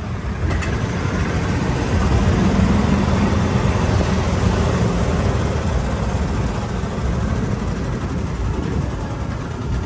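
Steady low rumble of road and wind noise from riding in an open golf cart along a paved street, a little louder for a few seconds in the middle.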